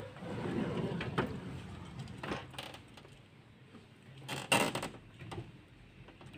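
A pull-out pharmacy drawer opening with a click, then cardboard medicine boxes rustling and shifting inside it, with a few louder knocks about four and a half seconds in.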